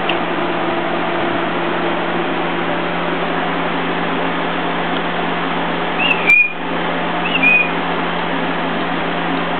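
Steady background hiss with two short, high squeaks about a second apart a little past the middle, the first preceded by a sharp click.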